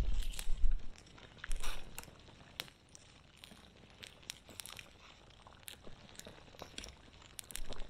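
Wood campfire crackling, with irregular sharp pops and snaps from the burning wood, busier in the first couple of seconds and again near the end. A low rumble runs under the first second.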